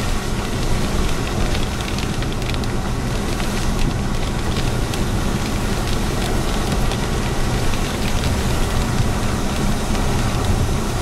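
Steady road and wind noise from a moving car, heard from inside the cabin.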